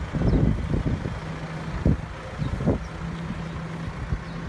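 Tractor engine running steadily with a low hum, with a few brief louder thumps over it.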